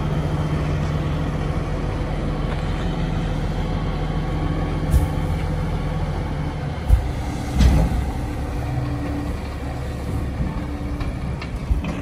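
Truck engine running steadily while its hydraulic dump body tips a load of hay bales out, with a sharp knock about five seconds in and two loud thuds a little before and after seven and a half seconds as the bales drop.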